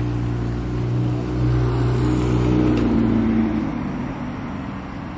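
A motor vehicle's engine running, growing louder in the middle and then fading, with its pitch dropping near three seconds in, as a vehicle passes by.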